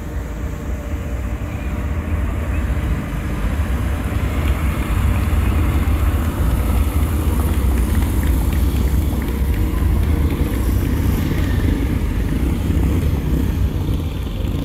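Many motorcycle engines running as a column of bikes rides slowly past, a deep steady rumble that builds over the first few seconds and then holds.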